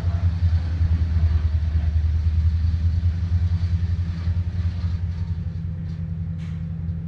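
A large engine running steadily at a low, even pitch. A brief hiss comes about six and a half seconds in.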